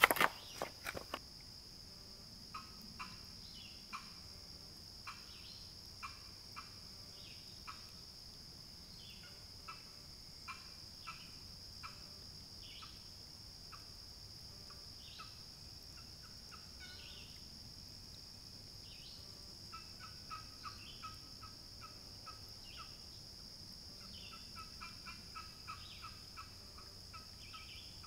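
A wooden turkey box call, walnut lid over a chestnut box, played at a distance: a series of short, separate yelping notes, with faster runs of notes near the end. A few loud knocks close to the microphone at the very start.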